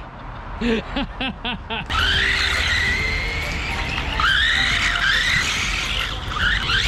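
Small brushed-motor RC car driving: the electric motor whines, rising and falling with the throttle, over the noise of the tyres on the ground. It starts suddenly about two seconds in.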